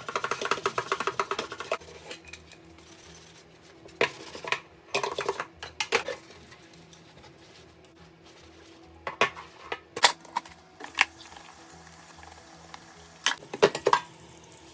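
Dishes and cutlery being handled, clattering and clinking: a quick run of clinks in the first two seconds, then scattered single clinks and knocks.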